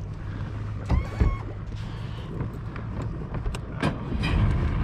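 Newly installed electric trolling motor running at the bow with a steady low hum, just rewired after its prop had been turning backwards. A brief whine comes about a second in, and the sound grows louder near the end.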